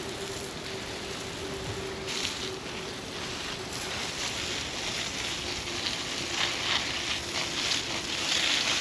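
Fire crackling and hissing. The irregular crackles grow denser after about two seconds, over a faint steady hum.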